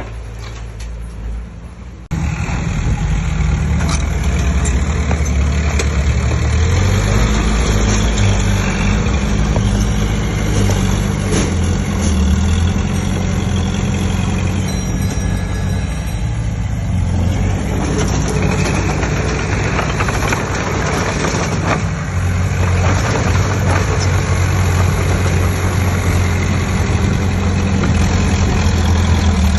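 Heavy diesel earthmoving machinery engine running steadily, with a sudden rise in level about two seconds in.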